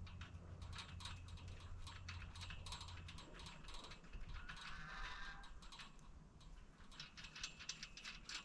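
Light, irregular clicking and ratcheting of small metal hardware being worked by hand on a galvanized steel tube door frame, the clicks coming thicker near the end. A low hum stops about three seconds in, and a short wavering tone sounds about midway.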